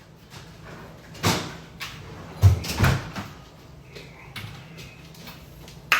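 A few separate knocks and bumps of things handled in a kitchen, with kitchen cabinet or door sounds among them, the loudest about two and a half seconds in.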